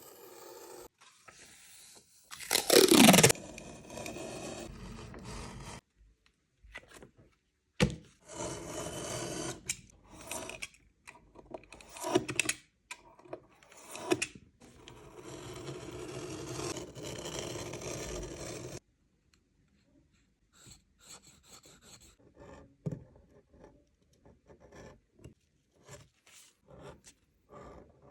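Hand tools working leather in a string of short takes: rubbing and scraping strokes with a loud scrape falling in pitch about three seconds in, then, from about two-thirds of the way on, softer scattered clicks and taps.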